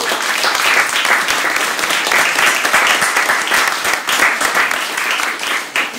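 Audience applauding: dense hand clapping from a roomful of people, thinning out near the end.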